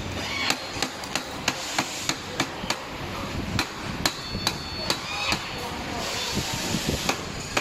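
A series of hammer blows on the scooter's front fork and stem, about two a second, each with a short metallic ring. The blows pause briefly near the end and then resume. They are typical of knocking a part into place while refitting a Kugoo M4 electric scooter's stem tube.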